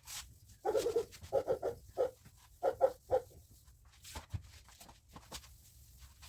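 An animal calling in a quick run of about eight short calls, followed by a few faint knocks.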